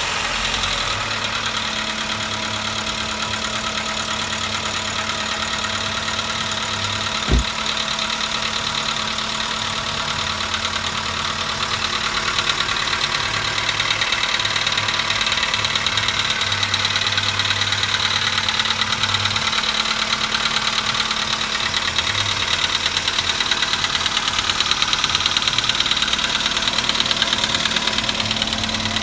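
Volkswagen Polo Sedan's CFNA 1.6-litre four-cylinder petrol engine idling steadily just after a cold start, with the knock it makes when cold. A single short thump about seven seconds in.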